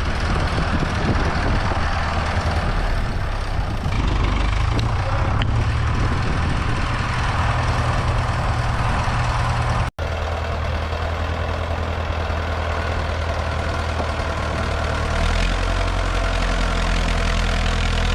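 A heavy engine running steadily with a low hum. It breaks off for an instant about ten seconds in, then the same running resumes.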